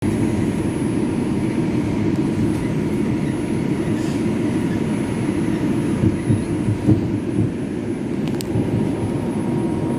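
R142 subway train rolling into the station and slowing: a steady, loud rumble of wheels on rail, with a few louder knocks about two-thirds of the way through.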